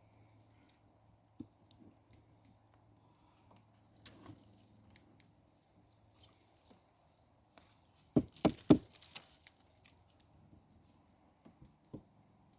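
Faint scattered crackles and pops from a slow, smoky brush fire of branches. About eight seconds in there is a quick run of four loud knocks.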